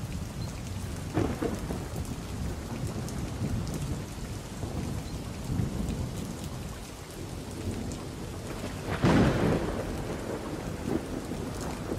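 Thunderstorm: thunder rumbling low and continuously over a steady hiss of rain, with a sharper, louder clap of thunder about nine seconds in.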